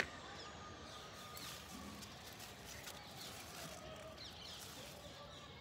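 Faint bird chirps, short falling notes every second or so, over a quiet background hiss, with one sharp click right at the start.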